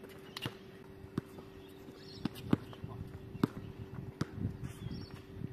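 A basketball bouncing on an outdoor hard court as a player dribbles, with a sharp bounce unevenly about once a second. A faint steady hum runs underneath.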